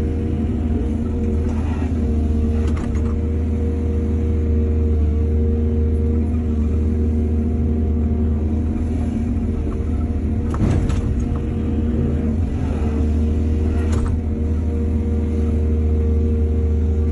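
Excavator's diesel engine running steadily, with a few short knocks about two, eleven and fourteen seconds in.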